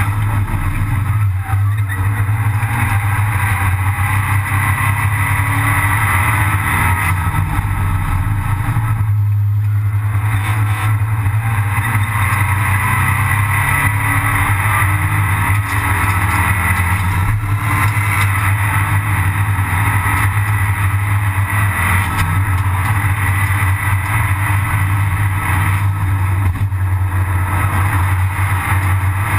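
Abarth 500 Assetto Corse race car heard from inside the cabin, its turbocharged 1.4-litre four-cylinder engine running hard under racing load, mixed with road and wind noise. The sound eases briefly about nine seconds in, then carries on loud and steady.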